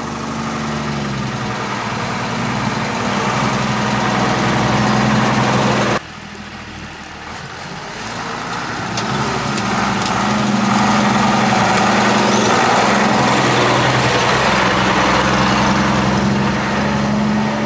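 Mercedes-Benz Unimog truck's diesel engine running steadily as it crawls off-road. The engine sound drops suddenly and goes quieter about six seconds in, then grows louder again over the next few seconds.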